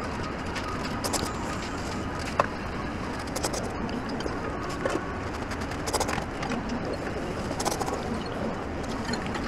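Steady ramen-shop background hum with scattered small clicks of chopsticks and a spoon against a ceramic ramen bowl, one sharper clink with a short ring about two and a half seconds in.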